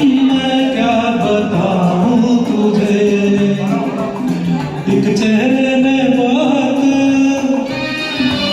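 Karaoke performance of a Hindi film song: a man singing a melodic line over a recorded instrumental backing track.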